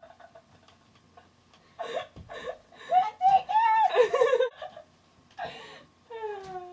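High-pitched, breathless laughter in several bursts after a quiet start, falling in pitch near the end.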